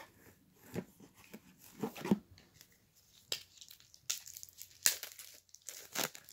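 Plastic packaging crinkling and rustling in irregular short bursts as a Funko Soda figure is unpacked from its can and bag.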